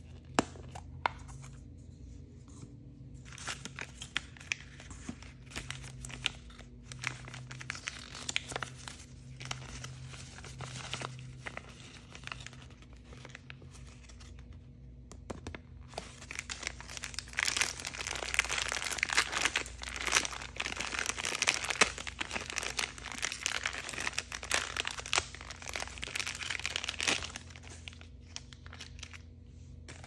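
Hands handling a plastic toy surprise capsule, with scattered sharp clicks, then crinkling and tearing open a thin clear plastic bag holding a small toy figure. The crinkling is dense and loudest through the second half, stopping a few seconds before the end.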